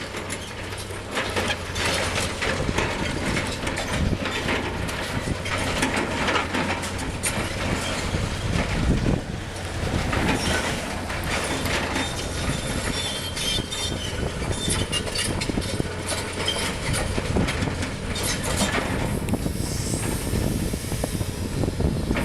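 Caterpillar 330C excavator working: its diesel engine runs steadily under load while irregular metallic clanks, scrapes and squeals come from the bucket and machinery.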